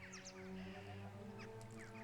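Faint background music of sustained notes that change about every half second, with many quick bird chirps over it.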